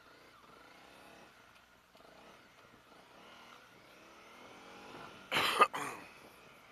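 Honda CRF250 Rally's single-cylinder engine running faintly at low revs as the motorcycle rolls slowly, its pitch creeping up a little. About five seconds in, a loud, sudden rush of noise, broken once and lasting under a second.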